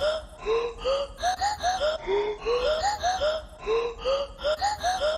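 End-screen sound loop of short rising, breathy squeaks in clusters, repeating regularly about every second and a half.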